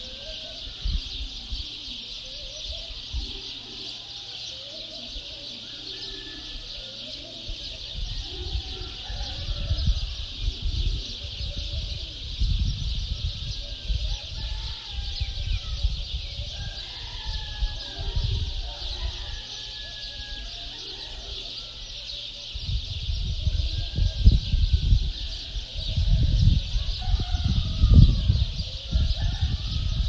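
A dense chorus of many small birds chirping, with scattered lower bird calls among it. A low rumble comes and goes, loudest in the last third.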